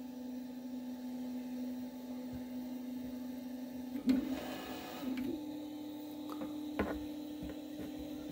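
Artillery Sidewinder 3D printer's stepper motors whining steadily as the bed and print head move during a test print. About four to five seconds in, the pitch steps up slightly after a short knock, and there is a sharp click near seven seconds.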